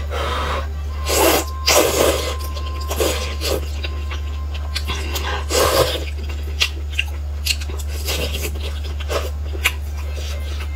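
A person slurping thick noodles in loud noisy bursts, about a second in and again near six seconds, then chewing with short wet clicks and lip smacks. A steady low hum runs underneath.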